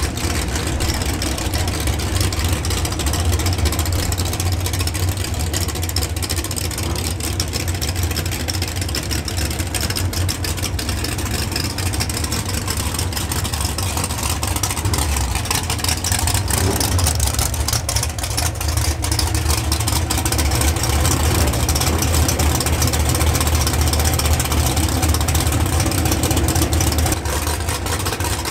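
Drag race car engines idling steadily with a low rumble.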